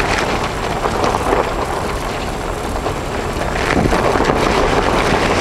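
Wind blowing across the camera's microphone: a steady, loud noise with no distinct events.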